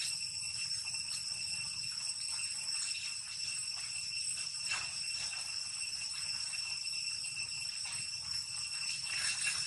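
Steady high-pitched insect drone, an even whine that holds at one pitch without breaks, with faint scattered ticks.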